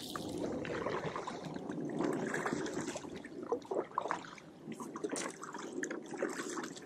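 Kayak paddle strokes through the water, with water trickling and splashing off the blades.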